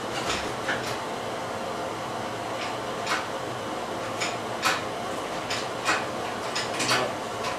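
Scattered light clicks and metallic clinks of hand tools and parts being worked in a car's engine bay, about ten in all at irregular intervals, over a steady hiss.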